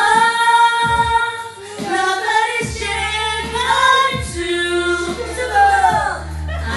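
Women singing karaoke into microphones over a backing track. They hold one long note near the start, then sing shorter phrases.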